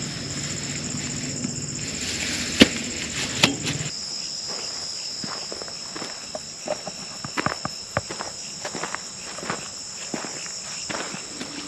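Steady high-pitched chorus of insects, with irregular sharp clicks and taps throughout, two of them loud about two and a half and three and a half seconds in. A low hum underneath stops about four seconds in.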